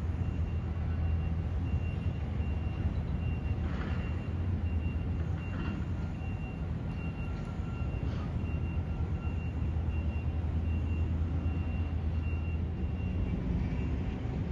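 Steady low engine rumble with a faint, steady high-pitched whine above it.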